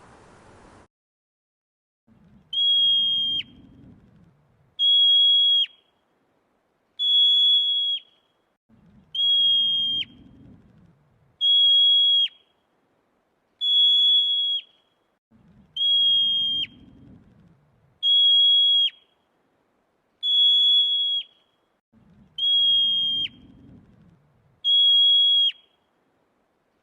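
A high, steady whistle about a second long that ends in a quick drop in pitch, repeated eleven times, about one every two seconds.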